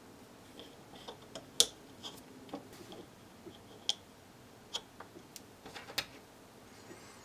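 Scattered light clicks and taps of small plastic parts being handled: short pieces of PTFE tubing pushed into holes in a laser-cut plate assembly. The sharpest tick comes about one and a half seconds in, with a few more near the middle and end.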